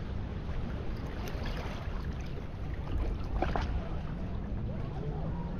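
Sea-shore ambience: small waves washing over rocks at the water's edge, with wind rumbling on the microphone and a faint low drone in the background.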